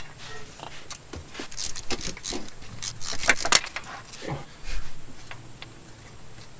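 Irregular metallic clicks, clinks and rattles of a wrench and bolts as the timing belt tensioner is unbolted and pulled off a Honda 3.5L V6.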